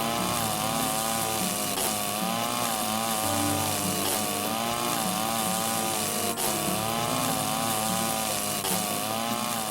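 Background music: a buzzy, wavering lead phrase repeating every second and a half or so over a stepping bass line.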